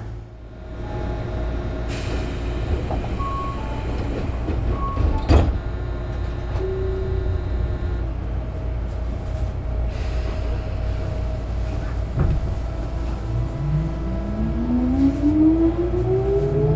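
Inside a Tobu 9000-series electric train car: steady equipment hum and tones while it stands, with a sharp clunk about five seconds in. Near the end a rising whine from the chopper-controlled traction motors climbs smoothly in pitch as the train starts off and accelerates.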